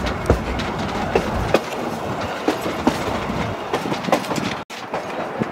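Wheels of a narrow-gauge passenger car running along the track: a steady rumble with irregular clicks and knocks. The sound cuts out for an instant near the end.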